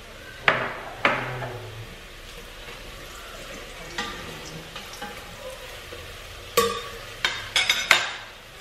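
Stirring food in a stainless steel pot with a wooden spoon, over a faint steady sizzle. A metal spoon clinks sharply against the pot twice near the start, and there is a quick run of several clinks near the end.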